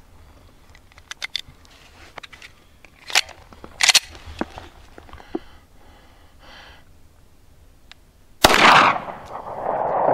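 A few small clicks of a magazine being loaded and seated, then a single 9mm pistol shot about eight and a half seconds in, followed by a long trailing echo.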